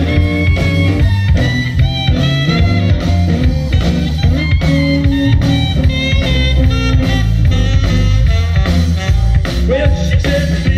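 Live blues band playing through a PA: electric guitars and drum kit keep a steady beat under a melodic lead line.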